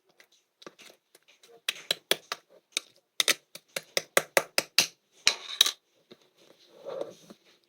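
Air bubbles popping and clicking as soft, thick slime is pressed and squeezed: a run of sharp pops, about two to three a second, then a short squelching burst.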